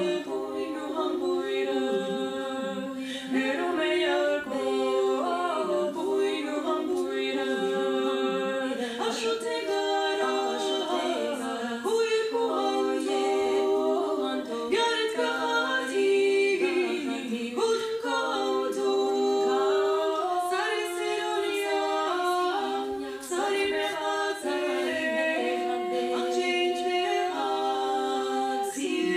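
Armenian folk song sung a cappella by a trio of women's voices in close harmony, several held vocal lines moving together.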